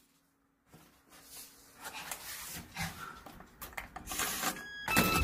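Gateman digital door lock operated from the inside: faint shuffling and rubbing, then a few short electronic beeps about four and a half seconds in, and near the end a heavy clunk with more tones as the lock releases.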